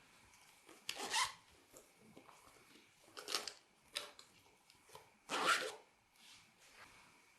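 Slime being worked by hand in four short squishes. The loudest come about a second in and about five and a half seconds in.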